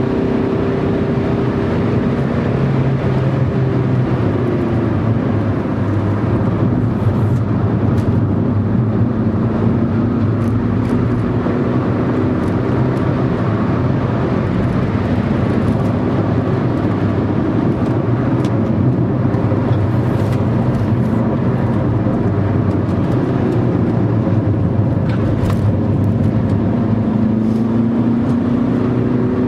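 Car engine and road noise heard from inside the cabin while driving at speed, steady throughout. The engine note drops a few seconds in and climbs again near the end.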